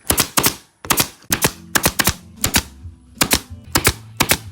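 Upholstery staple gun firing staples into a boat seat cover, a rapid series of sharp snaps, mostly in close pairs about every half second.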